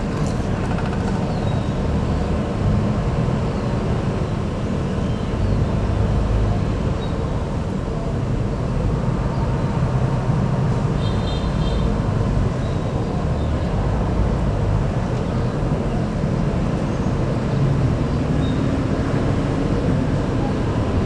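Diesel bus engine running close by, a steady low rumble, with a brief high-pitched tone about eleven seconds in.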